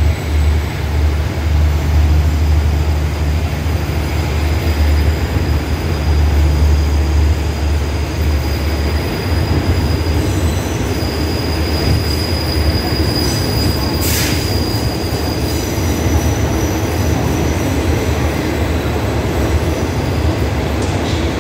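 Train on elevated track: a deep rumble that is strong and steady for the first half, then eases, with a thin high wheel squeal from about 11 to 16 seconds in and a brief hiss near 14 seconds.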